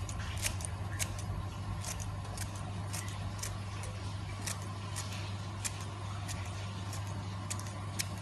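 A knife cutting through crisp green herb stalks held in the hand, giving sharp snips at an irregular pace, roughly two a second, over a steady low hum.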